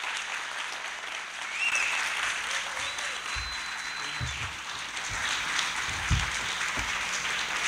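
A large audience applauding in an auditorium, a standing ovation that grows a little louder toward the end.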